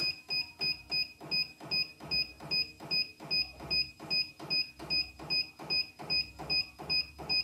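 Computerised embroidery machine beeping about three times a second in an even run, each short high beep joined by a dull mechanical knock. This is the key-press tone repeating while the embroidery arm jogs the hoop step by step.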